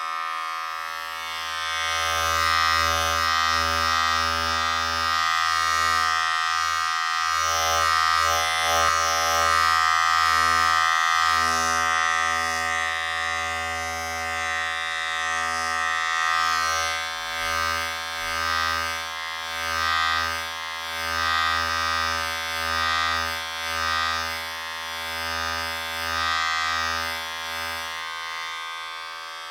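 Electric razor running and shaving, a steady buzz made of many even tones over a low hum. From about halfway through, the loudness rises and falls roughly once a second.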